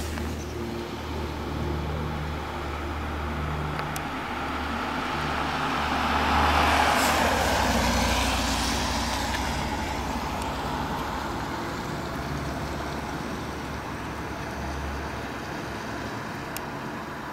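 A car passing on the road, its tyre and engine noise swelling to its loudest about seven seconds in and then fading, over a low steady rumble.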